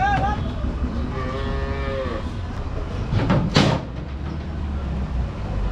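A cow mooing once, a call of about a second whose pitch dips at the end, over a steady low rumble. A brief noisy burst comes about three and a half seconds in.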